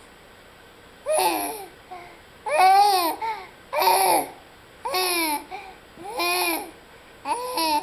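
Six loud, pitched vocal calls in a row, each rising and then falling in pitch, about one every second and a bit, starting about a second in.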